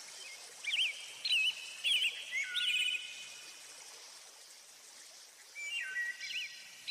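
Small birds chirping in short, quick, repeated phrases over a faint steady hiss. The chirping pauses for a couple of seconds in the middle and starts again near the end.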